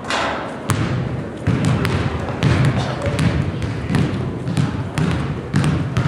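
Basketball being dribbled on a hardwood gym floor, a low bounce roughly once a second, over the chatter of a crowd in the gym.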